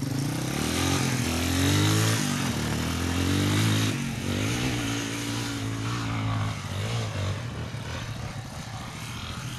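Dirt bike engine revving hard, the pitch climbing and dropping again several times as it pulls away and shifts up. It then grows fainter after about six seconds as the bike heads up a steep sand hill.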